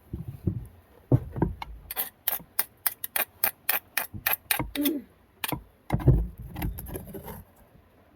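Handling noise of knocks and thuds, with a run of about a dozen sharp clicks at roughly four a second through the middle.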